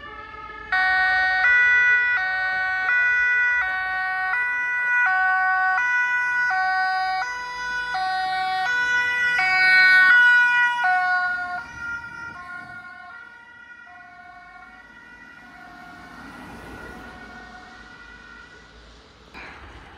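German two-tone Martinshorn siren on a Red Cross emergency vehicle, alternating between a high and a low note about every three-quarters of a second. It comes in loud about a second in, then fades away from about 11 seconds as the vehicle moves off.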